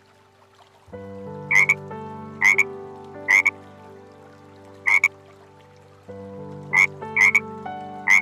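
A frog croaking: about seven short, loud croaks at uneven intervals of roughly a second, starting a second and a half in, over steady held low tones.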